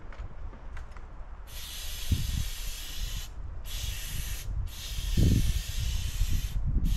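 Pressurized spray hissing in three bursts, one after another, with short breaks between them. Low thuds from handling the wood fall underneath.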